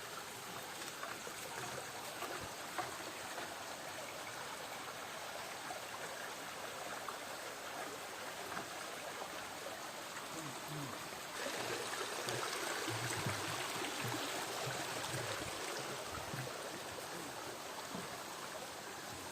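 Rushing water of a small waterfall, a steady noise that gets louder about eleven seconds in, with a few soft low thumps around the middle.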